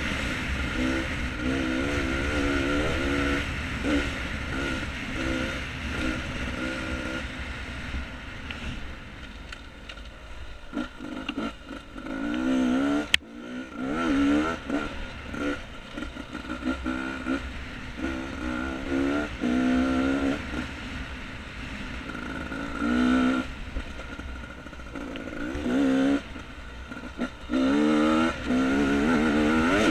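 Beta 250RR two-stroke dirt bike engine being ridden on a trail, revving up and down repeatedly as the throttle is opened and closed, with a steady low wind rumble on the helmet-camera microphone. A single sharp knock about halfway through.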